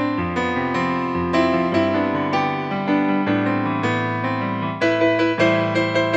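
Background piano music: a steady run of notes over held chords.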